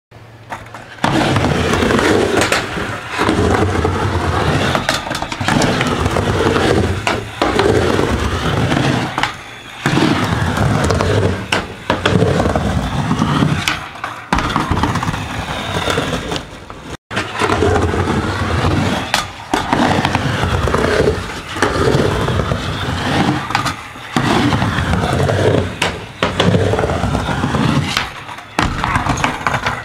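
Skateboard wheels rolling back and forth across a wooden mini ramp, a continuous rumble that swells and dips every couple of seconds as the rider carves up and down the walls. It is punctuated by sharp clacks of the board striking the coping and landing on the deck. The sound cuts out for an instant about halfway through.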